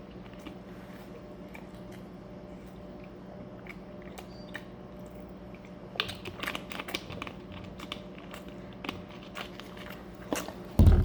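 A person eating close to the microphone: chewing and biting, with a run of crisp crunches and clicks from about halfway through and one loud thump near the end, over a steady low hum.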